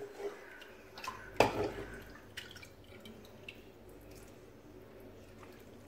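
Chicken broth being poured over layered rice, chicken and vegetables in a cooking pot, splashing and dripping. Several sharp knocks come in the first half, the loudest about a second and a half in.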